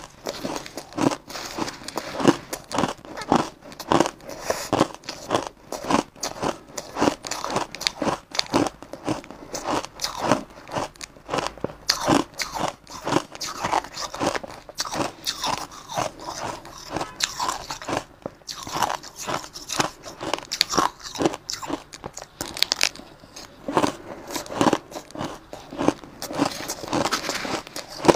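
Close-up crunching and chewing of a mouthful of crushed ice, a rapid, irregular run of sharp crunches several times a second.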